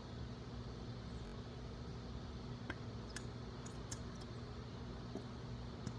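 Quiet room tone with a low steady hum and a few faint clicks, about three seconds in and again near the end.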